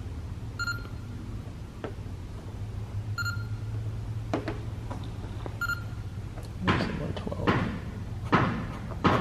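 PosiTector paint thickness gauge beeping three times, about two and a half seconds apart, as its probe takes readings on the car's paint. Near the end, a marker scratches across masking tape in several strokes.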